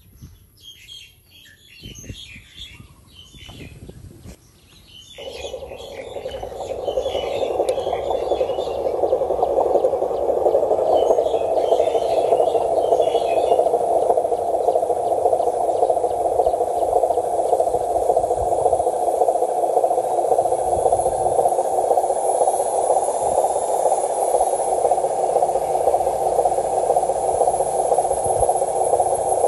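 Birds chirp during the first few seconds. About five seconds in, an RC model dump truck's electric drive motor and gearbox start a steady whir that grows louder over the next few seconds as the truck drives, then holds steady.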